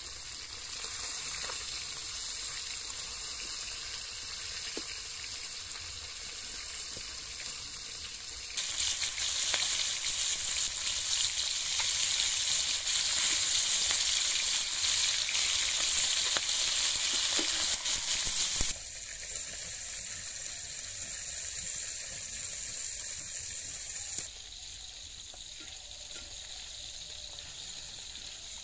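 Snakehead fish pieces frying in hot oil in an iron wok, a steady sizzle. It gets much louder and brighter for about ten seconds in the middle, then drops back abruptly.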